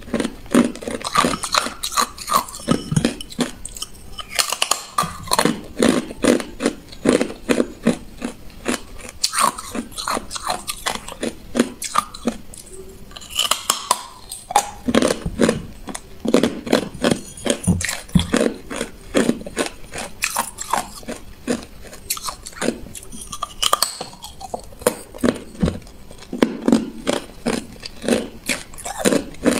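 A person biting into and chewing hard clear ice: a fast, crisp crunching and cracking, several sharp cracks a second, with short pauses between mouthfuls.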